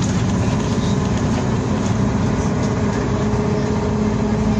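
BKM-321 trolleybus driving, heard from inside the passenger cabin: a steady hum from its electric traction drive over tyre and road noise.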